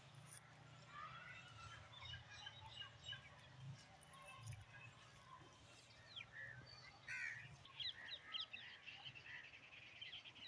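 Faint outdoor ambience with birds calling, including a quick run of chirps about three-quarters of the way through, over a faint low hum.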